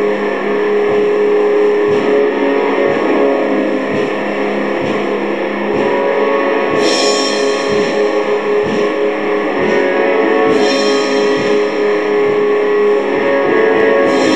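Black metal in a primitive version: heavily distorted electric guitar over a steady low beat about once a second, with bright crashes about seven and ten seconds in.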